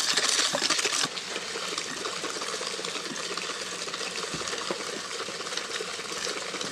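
Abu Garcia Revo X baitcasting reel cranked quickly by hand to spool on 12-pound line: a steady whir of the reel's gears with fine rapid ticking, alongside the rattle of the supply spool spinning in its box as the line pays off. It is a little louder for about the first second.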